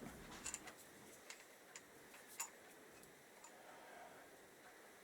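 Near silence with about five faint, light clicks, the clearest about two and a half seconds in: small engine parts such as the clutch spacer being handled and fitted.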